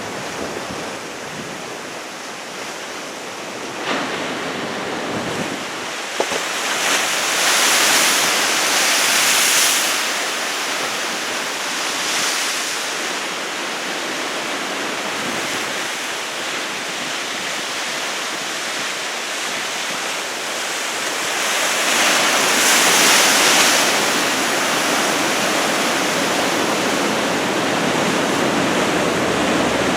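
Heavy surf from big typhoon swell: a steady rush of breaking waves and wash, swelling louder as big waves break about eight seconds in and again about twenty-two seconds in.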